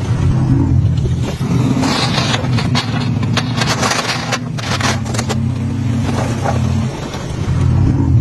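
Heavy diesel engine of construction machinery running steadily under load, with a cluster of clattering knocks and scrapes from about two to five seconds in.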